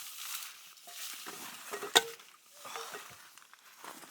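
Rustling and handling noises of camping gear and fabric, in irregular scuffs, with one sharp click about two seconds in.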